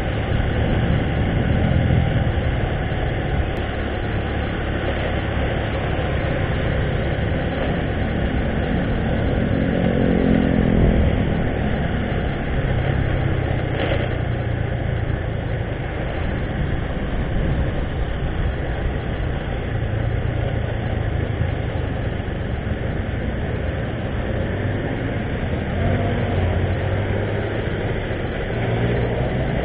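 Motorcycle engine running while riding through town traffic, with road and wind noise. The engine pitch rises and falls as the bike speeds up and slows, most clearly about ten seconds in.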